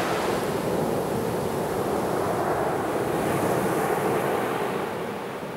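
Sea surf breaking and washing up a fine-pebble beach: a steady rushing sound that fades over the last second.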